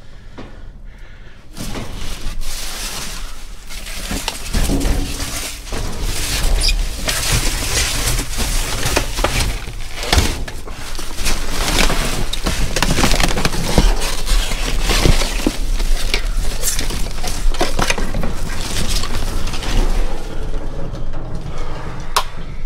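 Trash crunching and crinkling close up as a dumpster's load of plastic bags, wrap and cardboard is trampled and dug through, with many sharp cracks. It starts about a second and a half in and keeps on without a break.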